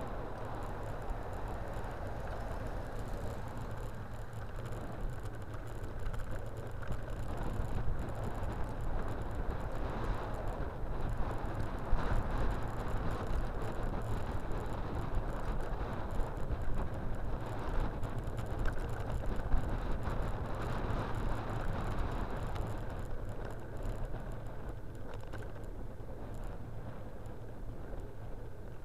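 Steady rumble and wind noise of a bicycle ride picked up by a camera mounted on the bike, with a few brief knocks from bumps in the road.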